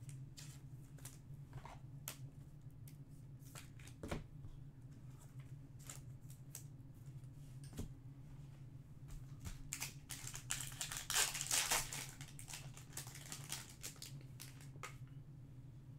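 Trading cards and a foil card-pack wrapper being handled: scattered light clicks and taps, with a burst of wrapper crinkling about eleven seconds in as a pack is torn open, over a steady low hum.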